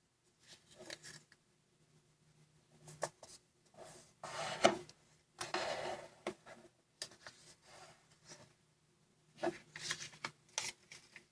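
Origami paper rustling and crinkling in short bursts as fingers fold and crease it, with the longest stretch of rustling about four to six seconds in and a few sharp crisp snaps of the paper near the end.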